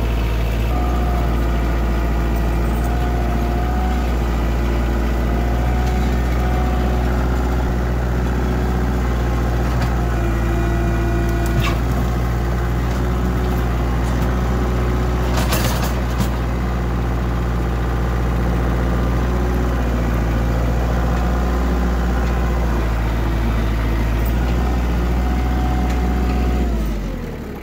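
Kioti compact tractor's diesel engine running steadily, with a higher whine that comes and goes and a brief clatter about halfway through. Near the end the engine is shut off and winds down.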